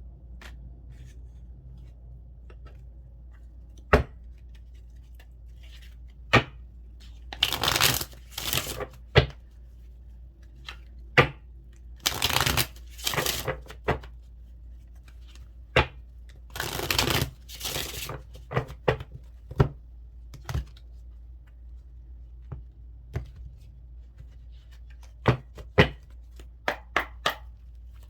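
Tarot cards being handled and shuffled: three spells of quick card rustling, with scattered sharp clicks and taps of the cards between them.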